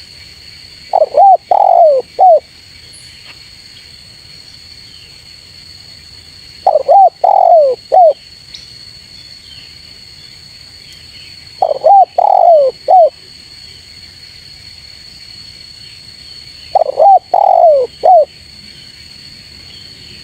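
Spotted dove (tekukur) cooing: four phrases of three or four notes, one about every five seconds.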